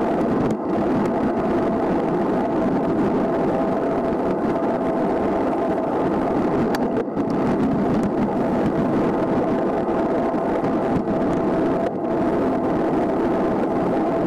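Steady rush of wind over the camera and road-bike tyres rolling on asphalt at speed, with a constant hum running through it. The rush dips briefly a few times.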